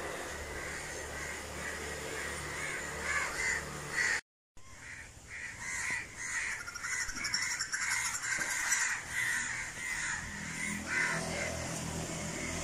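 Crows cawing over and over, several short calls a second, over a steady low hum; the sound cuts out for a moment about four seconds in.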